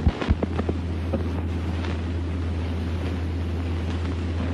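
Steady low hum and hiss of an old film soundtrack, with a few sharp clicks in the first two seconds.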